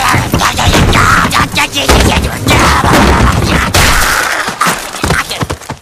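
Cartoon explosion sound effects: a rapid, continuous run of bangs and blasts over a roar of fire, cutting off suddenly near the end.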